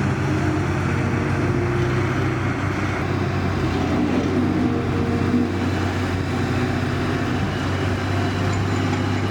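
Steady engine drone with a constant low hum under even noise, unchanging throughout.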